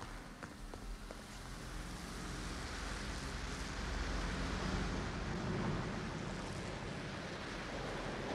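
Rumble of an elevated subway train approaching on the overhead tracks, a steady noise that swells over several seconds.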